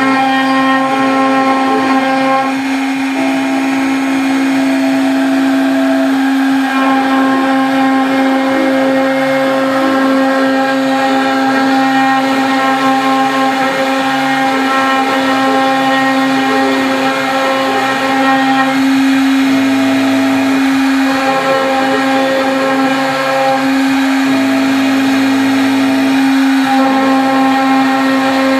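CNC router spindle running steadily with a high whine as its bit mills lettering into hardwood, over lower motor tones that shift in steps every second or so as the head moves along the cuts.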